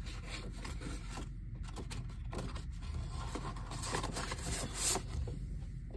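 Cardboard and paper rustling and scraping as a CD album's sleeve and booklet are slid and handled, with a louder scrape near the end.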